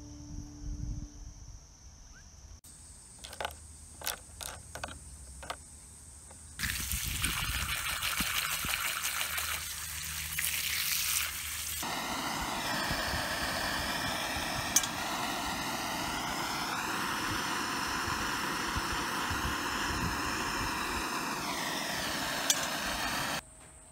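Handheld gas blowtorch flame hissing steadily while heating steel screws to blacken them, with two sharp clicks along the way. It is preceded by a few seconds of quieter tapping and handling clicks.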